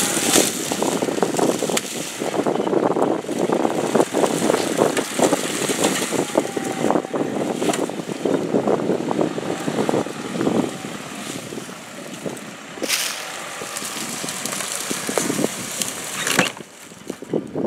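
Land Rover Discovery 5 crawling slowly off-road over a muddy, leaf-covered slope, its engine running low, with steady crackling and crunching of dry leaves and twigs.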